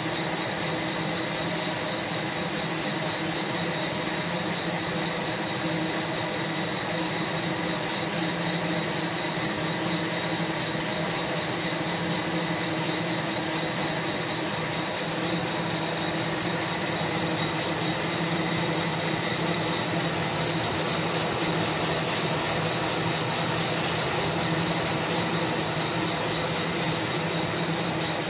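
Fracino Roastilino fluid-bed coffee roaster running: a steady blower hum and rush of hot air, with coffee beans rattling in the roasting chamber. The airy hiss gets louder in the second half.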